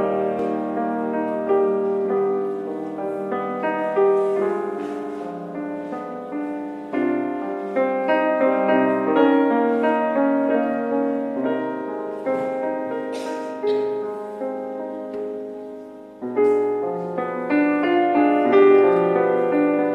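Grand piano playing a slow, lyrical theme in sustained notes and chords. The playing thins out and dies away about sixteen seconds in, then picks up again with a fuller chord.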